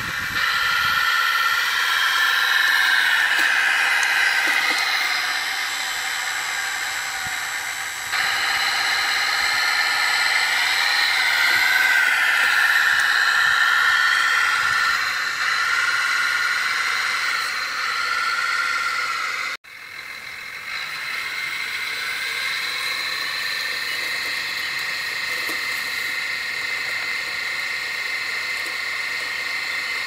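Simulated tractor diesel engine sound from the RC Schlüter 1250 VL model's Benedini sound module, played through a small onboard speaker with no deep bass, its pitch rising and falling with the throttle while the model pulls a four-furrow plough. The sound cuts off abruptly about 20 seconds in and resumes steadier.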